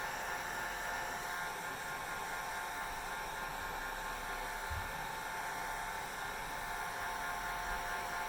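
Hair dryer running steadily: an even rush of air with a constant whine from the motor.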